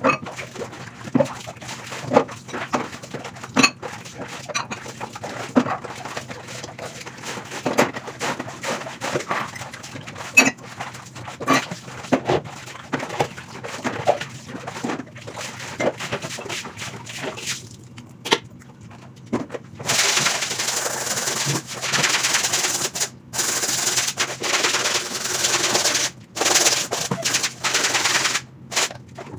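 Dishes and plastic basins knocking and clattering as they are washed by hand in water. About two-thirds of the way through, a loud rasping hiss of a brush scrubbing a soapy mat takes over, in long stretches with short breaks.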